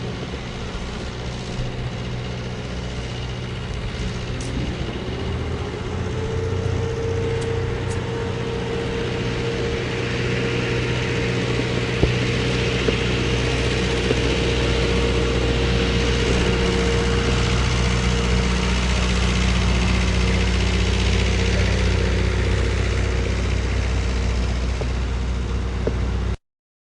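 Construction machinery engine running steadily, with a whine that rises in pitch about four seconds in and then holds. The sound grows gradually louder and cuts off abruptly near the end.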